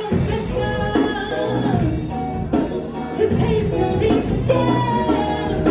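A band playing live: a voice singing over a full band with drums, played steadily loud.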